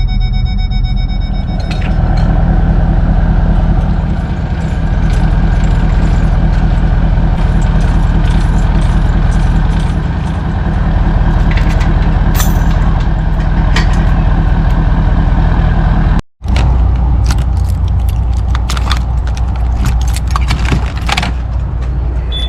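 Motor vehicle driving, a steady loud engine and road rumble with scattered light ticks, broken by a sudden brief dropout about sixteen seconds in.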